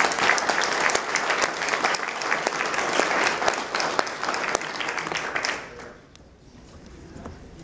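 Audience applauding, the clapping dying away about six seconds in to quiet room sound.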